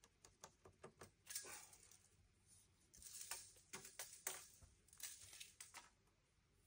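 Faint, scattered scratches and light taps from hands and a pencil working on the lumber of the rack, with short quiet gaps between them.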